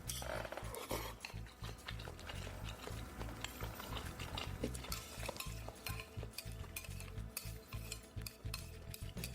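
Eating utensils clinking and scraping against bowls and dishes during a meal, with many small sharp clicks.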